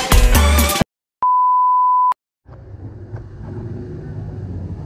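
Background music cuts off abruptly, then after a brief silence a single steady electronic beep sounds for about a second at one pitch, like a censor bleep. After another short gap a low rumbling background noise comes in and slowly grows louder.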